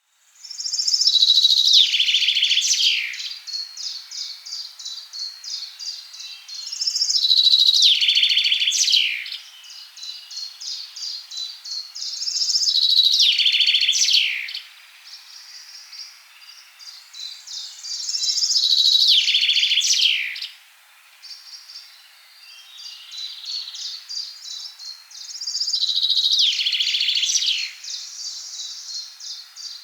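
Forest songbird singing: five loud phrases of about two seconds each, roughly six seconds apart, each ending in quick falling notes, with quieter, rapid repeated twittering between them.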